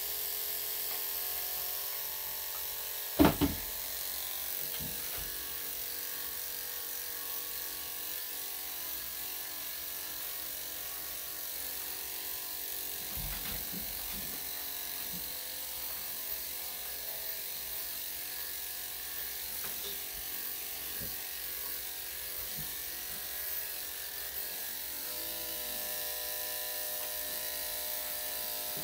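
Electric dog-grooming clippers with a #3 3/4 blade running steadily as they clip a Bichon/Shih-Tzu's coat. A single sharp knock sounds about three seconds in.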